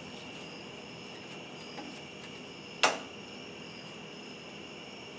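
Steady high chirring of crickets, with one sharp metallic click about three seconds in as the hose clamp and fuel pump sending unit are handled.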